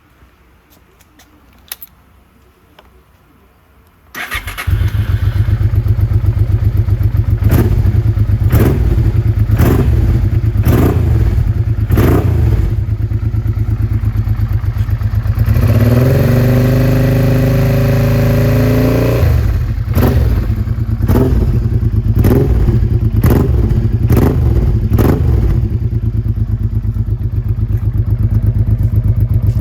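Honda Bros 650's V-twin started through an aftermarket exhaust with a carbon silencer, catching about four seconds in after a couple of faint clicks. It idles with many short throttle blips and one revving held for about three seconds around the middle.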